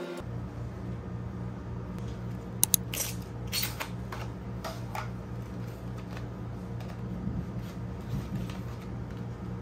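Unboxing a boxed sticker set by hand: two sharp clicks of the plastic case about two and a half seconds in, then short crinkles of a clear plastic cover and faint taps as the sticker packs are handled, over a steady low hum.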